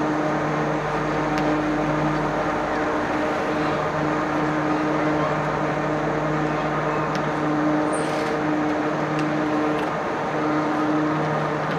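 Babbacombe Cliff Railway funicular car coming down its track, with a steady mechanical hum from the running car and its haul cable, and a few light clicks.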